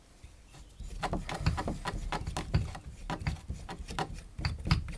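Irregular knocks, clicks and rubbing from hands working under an acrylic bath, fitting a locking nut onto a tap's tail by hand. It starts about a second in.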